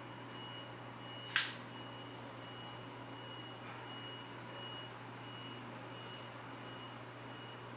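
A faint high-pitched electronic beep repeating about twice a second over a steady low hum, with one sharp click about a second and a half in.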